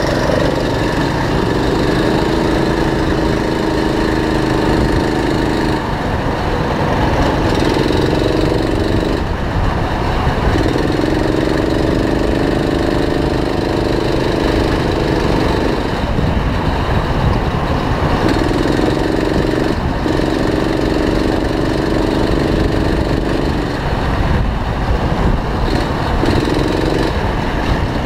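A go-kart's small engine heard close up from on board, running hard down the straights and easing off for the corners: its buzzing note holds for a few seconds at a time and drops away briefly about five times.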